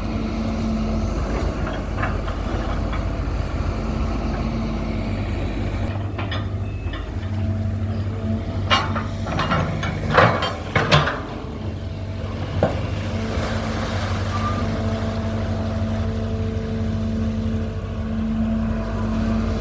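Excavator's diesel engine running steadily, with a short run of sharp knocks and clanks about nine to eleven seconds in and one more shortly after.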